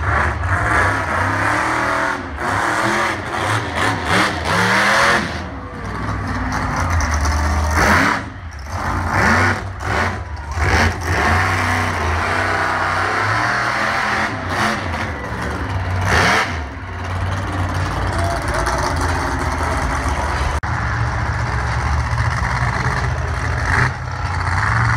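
Monster truck engine running loud and revving hard, its pitch rising and falling again and again as the truck drives the dirt arena.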